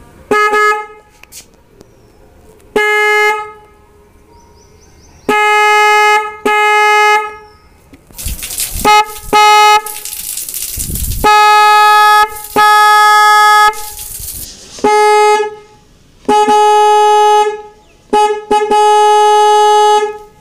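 Hella Mach trumpet low-tone horn on a scooter sounding in about a dozen honks, some quick taps and some held for about a second, each one steady single note. A loud rush of hiss-like noise fills the gap around the middle.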